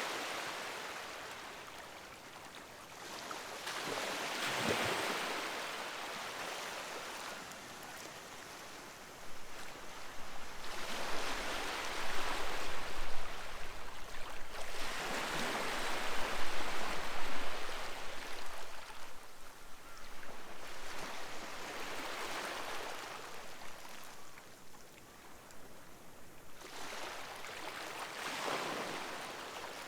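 Sea waves breaking and washing up the shore, one surge every few seconds. They are loudest in the middle stretch.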